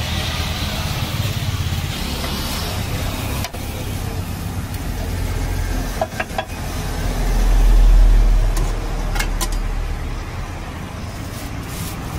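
Steady low rumbling noise that swells to its loudest about eight seconds in and then eases off, with a few short sharp clicks scattered through it.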